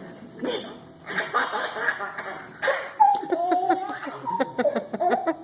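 Laughter: breathy bursts of laughing in the first half, then a high, wavering laughing voice broken by short sharp catches from about three seconds in.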